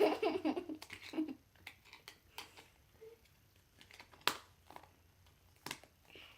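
Slime being handled in its plastic tub: a short, pitched squelching sound at the start, then a few scattered light clicks and taps.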